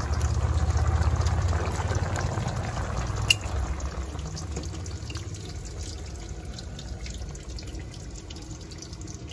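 Pot of mussel and chili broth bubbling at a boil, a steady low rumble with fine crackling that slowly grows quieter. A single sharp click a little over three seconds in.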